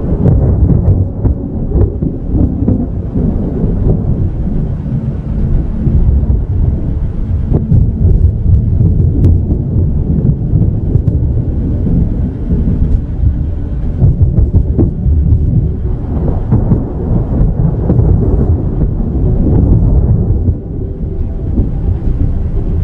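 Thunderstorm: a loud, continuous low rumble of thunder that swells and eases without any sharp crack.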